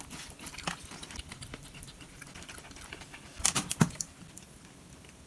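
Light clicks and taps of wooden chopsticks handling a chunk of corn on the cob, then a quick run of sharp crunching clicks about three and a half seconds in as the corn kernels are bitten.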